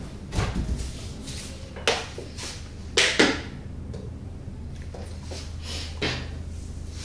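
A few short sharp knocks and clicks as household cleaning things are handled and set down, among them a plastic bottle of dishwashing liquid, over a steady low hum.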